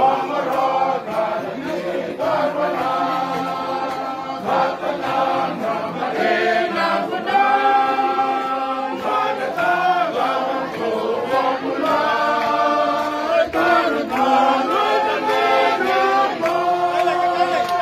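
A choir singing in harmony, several voice parts holding long notes together and moving from chord to chord.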